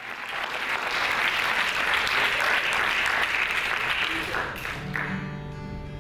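Audience applauding, fading out about five seconds in as the band starts a sustained, ringing chord.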